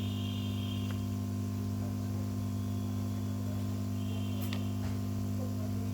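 Steady electrical mains hum from a repair bench, with two faint clicks, one about a second in and one about four and a half seconds in.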